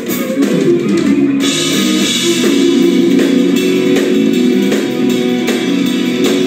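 A live instrumental jazz-fusion trio: fast electric guitar lines over bass guitar and drum kit.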